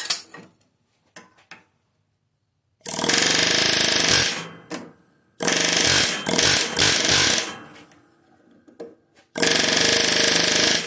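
Pneumatic air hammer firing in three bursts of one to two seconds each against a bolt threaded onto the crankshaft of a lawn tractor engine, shocking the flywheel loose while a pry bar holds it under tension. A few light clicks come before the first burst.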